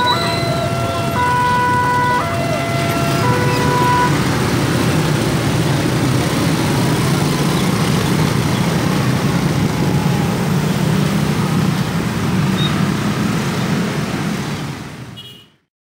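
Railroad crossing warning alarm sounding alternating two electronic tones, about one per second, which stops about four seconds in as the crossing reopens. Dense motorcycle and car traffic runs steadily under it and on after it, fading out near the end.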